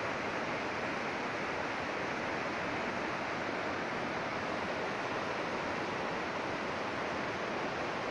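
Mountain stream cascading over boulders, a steady rush of white water.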